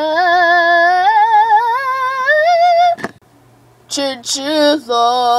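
A high solo singing voice holds one long wavering note that climbs slowly in pitch for about three seconds, breaks off, then sings the word 'chinchilla' near the end.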